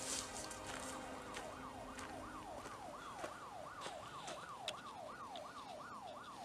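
A siren's fast yelp, its pitch sweeping up and down about three times a second. It fades in over the first couple of seconds and then holds, faint, with a few light clicks over it.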